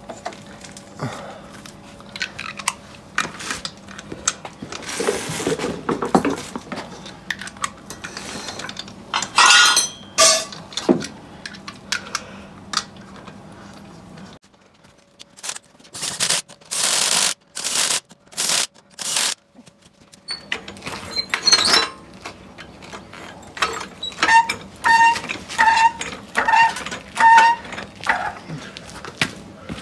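Hand tools working on metal: scattered clicks, knocks and clinks, a string of short loud noise bursts about halfway through, and a run of quick ringing metallic clicks near the end.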